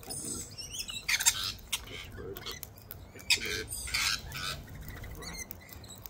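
Wild sulphur-crested cockatoos crunching peanuts in their shells, with a few short harsh squawks, clustered between about one and four and a half seconds in.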